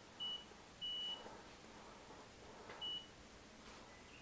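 Control-panel beeper of an LG F2WT208S0E washing machine sounding three short high beeps as the program selector is turned or its buttons pressed. The second beep is longer than the others.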